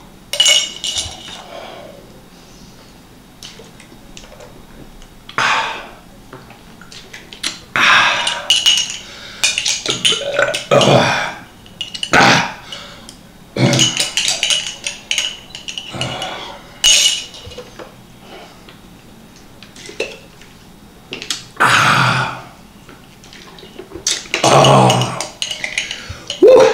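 A metal spoon scraping and clinking inside a small glass jar as chopped raw garlic is spooned out and eaten, in short bursts throughout. Between them come a few louder mouth and throat sounds from eating the garlic.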